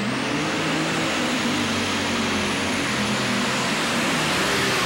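Methanol-burning light super stock pulling tractor's turbocharged engine going to full throttle as it launches off the line under load. The engine changes from a steady hum to a loud, rough full-power note about as the pull starts, with a high steady whine over it.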